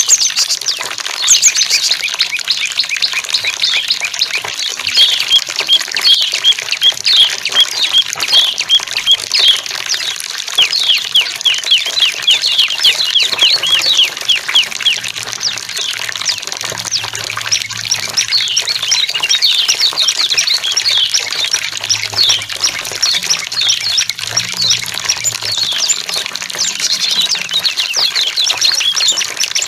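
Small songbirds chirping and twittering nonstop in quick down-slurred notes, with a run of short repeated notes several seconds in, over faint running water.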